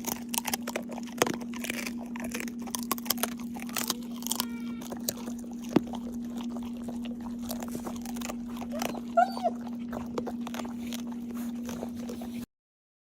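A dog crunching and chewing a dried chicken-foot treat: a run of small, crisp cracks and clicks, with a short whine about nine seconds in, over a steady low hum. The sound cuts off abruptly near the end.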